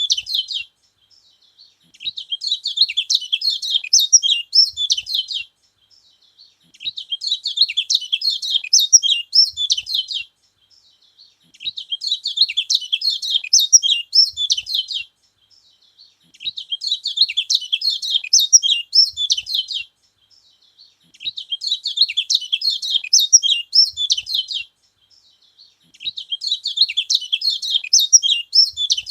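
Kecial kuning, a white-eye, singing: bouts of fast, high twittering about three to four seconds long, repeated roughly every five seconds with short pauses between them.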